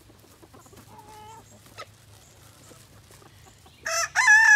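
Backyard chickens: a soft cluck about a second in, then a loud, drawn-out chicken call that starts near the end.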